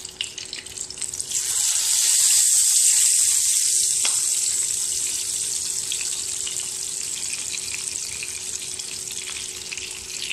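Pieces of climbing perch (koi fish) sizzling in shallow hot oil in a pan, a steady high hiss with crackling that swells loudly about a second and a half in and then slowly eases off. The fish is at the end of a light fry, ready to be lifted out.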